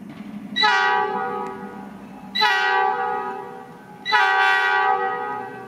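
EMD GP38 diesel locomotive's air horn sounding three blasts of about a second and a half to two seconds each, a chord of several notes at once. The locomotive's diesel engine runs low underneath.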